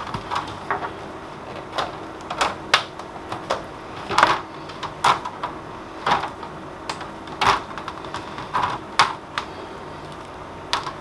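Irregular dry plastic clicks and snaps, a few sharper than the rest, as a loose acrylic sheet is pressed and worked back into the groove of a cheap composite picture frame.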